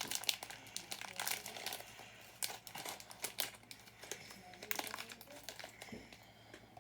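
Small plastic bag of building-brick parts crinkling as it is opened and handled, a dense run of crackles that thins out toward the end.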